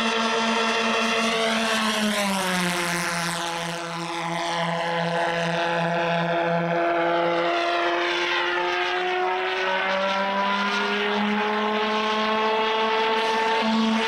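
Twin pulsejet engines of a large radio-controlled F/A-18 Hornet model in flight: a steady, strongly pitched buzz whose pitch drops as the jet passes about two seconds in, then climbs again as it comes back around.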